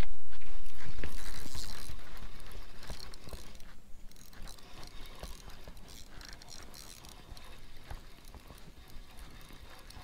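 A loud hiss at the start that fades away over about three seconds, then quick irregular clicking from a spinning fishing reel being cranked while a small catfish is reeled in.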